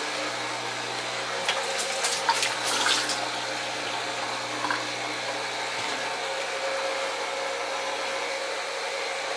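Water pouring steadily from or into a plastic gallon jug, with a few light knocks of handling about two to three seconds in.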